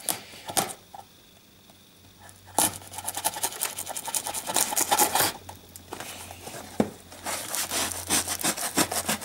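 A blade sawing and scraping through parcel packaging in quick repeated strokes, in two spells: one starting about two and a half seconds in, the other in the last couple of seconds.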